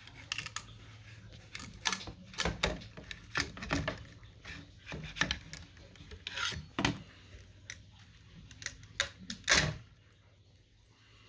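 Metal scraper prying and scraping 3D-printed PETG net pots and their raft off a printer's glass bed: a string of irregular clicks, scrapes and knocks over a low steady hum. The loudest knock comes near the end, and the clicking stops shortly after.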